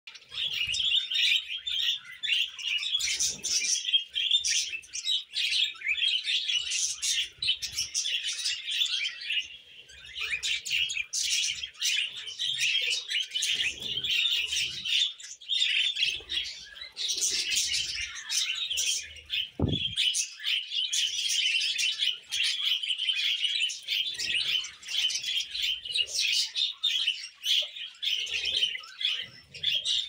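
A pair of budgerigars chattering and warbling: a fast, continuous, high twitter of chirps with short pauses now and then.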